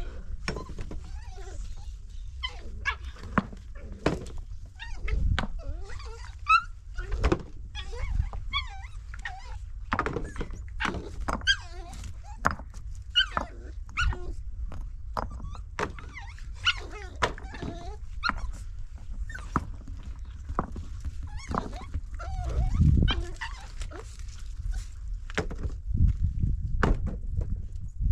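A dog barking and crying in many short, sharp calls, mixed with knocks, over a steady low rumble.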